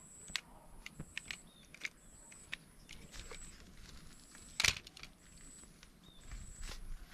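Irregular light clicks and rattles of hard plastic toy parts, with one louder clack about four and a half seconds in. A faint, high-pitched beep comes back about once a second.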